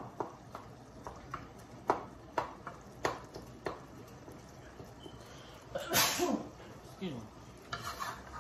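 A utensil clicking against a pan as ground beef is stirred, a handful of sharp clicks over the first four seconds. Then a person sneezes loudly about six seconds in, followed by a muttered apology.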